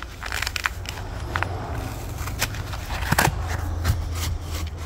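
Rustling and crackling of a used oil filter's pleated paper element as gloved hands handle it: scattered small clicks with a sharper cluster about three seconds in, over a steady low rumble.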